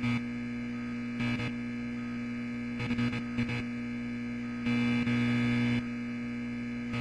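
A steady electrical buzzing hum with a strong low tone and many overtones. It swells louder briefly about a second in, again around three seconds in, and for about a second from five seconds.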